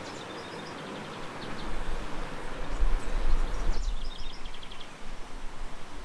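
A bird gives quick series of short, high call notes in two bouts, near the start and again about four seconds in, over a steady outdoor hiss. A heavy low rumble swells from about a second and a half in and fades near five seconds.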